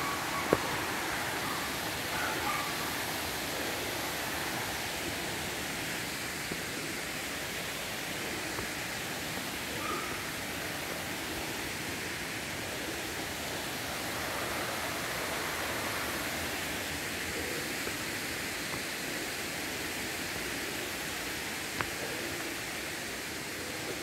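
Steady rush of a mountain stream flowing through the gorge below the waterfall, an even noise with no rhythm. A sharp click about half a second in and another near the end stand out above it.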